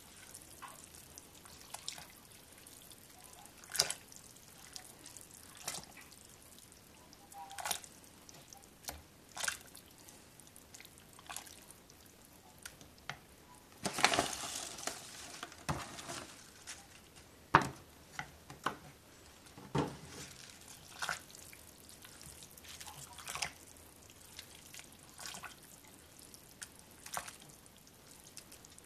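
Scattered clicks, soft knocks and leafy rustles as handfuls of fresh spinach are dropped from a plastic container into a crock pot of soup and pressed down, with small wet splashes. About halfway through there is a longer rustle as the container is tipped out.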